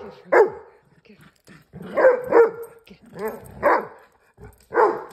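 Dog play-barking while the dogs tussle over a chew toy: about seven short, loud barks, mostly in quick pairs.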